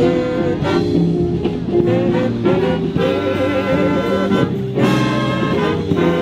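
Big band playing swing jazz, with a brass section to the fore.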